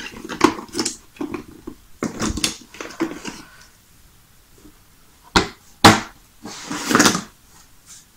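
Cardboard jigsaw puzzle pieces rustling and clicking as they are handled over a plastic toy case. About five and a half seconds in come two sharp plastic knocks, the second the louder, as the case's lid is shut, then a short rattle of pieces dropped onto the lid.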